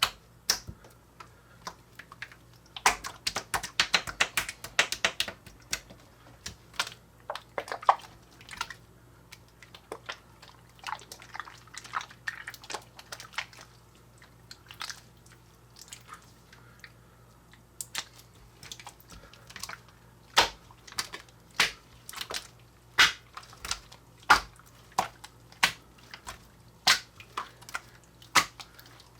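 Coca-Cola slime being squeezed and worked by hand, giving wet pops and clicks: a quick flurry about three seconds in, then scattered pops, and a steady run of single pops about one a second near the end.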